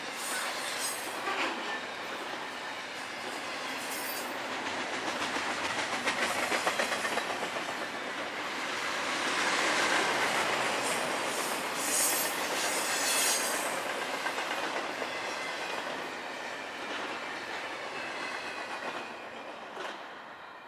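Double-stack intermodal freight cars rolling past at speed: steady wheel-on-rail rumble and clatter with a few brief high-pitched wheel squeals. The sound trails off near the end as the last car clears.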